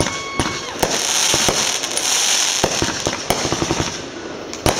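Fireworks display: aerial shells bursting in about a dozen sharp bangs at uneven intervals, with a high whistle that stops about half a second in.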